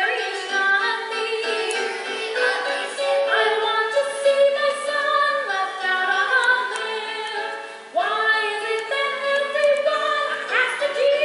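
A musical theatre number sung live on stage by voices with accompaniment, several voices at once. The singing thins out briefly and comes back in strongly about eight seconds in.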